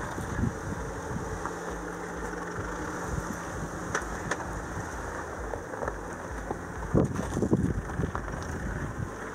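Jeep Wrangler Rubicon crawling slowly over rocks: a low engine hum under tyres crunching and knocking over stones, with a couple of sharp clicks about four seconds in and the loudest crunches around seven seconds in.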